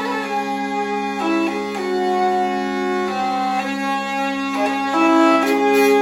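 Hurdy-gurdy, an Evo model, playing a melody of held notes that change every half second or so over a steady low drone.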